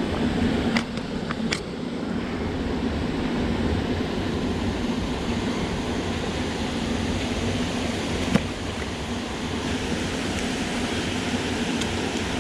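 Steady rush of flowing river water, with a few light clicks near the start and one sharp tick about eight seconds in.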